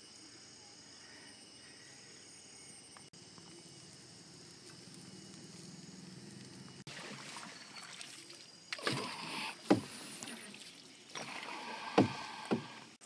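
Water splashing and sloshing from paddle strokes beside a small paddled boat. It is faint at first, then splashes louder in the second half, with two sharp strokes about two seconds apart near the end.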